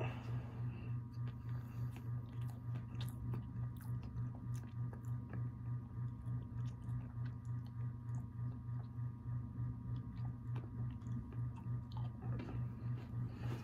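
Close-up chewing and biting of a Mexican pan dulce cookie, with many small crisp clicks and crunches. Under it a steady low hum pulses in an even rhythm.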